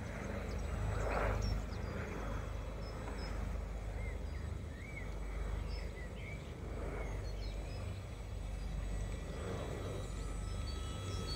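Outdoor ambience of wind rumbling on the microphone, with small birds chirping and a short warbling song phrase a few seconds in.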